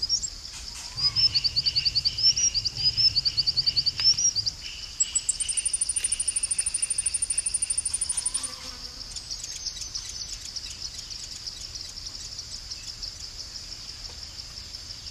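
Forest ambience of insects and birds: a steady high-pitched insect trill throughout, with a rapid series of pulsing chirps in the first four seconds and a higher, even trill from about five to eight and a half seconds.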